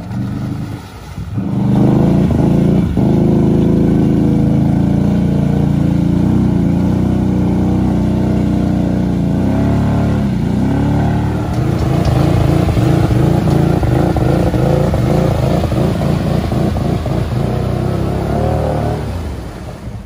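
Off-road vehicle engine revving hard under load, rising about a second and a half in. The pitch dips and climbs again around the middle, then runs choppy and uneven before dropping off near the end.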